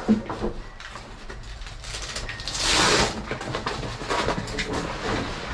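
Handling noise from gear in a pickup truck bed: a knock at the start, small clicks and rustles, and a louder rushing scrape about two and a half seconds in.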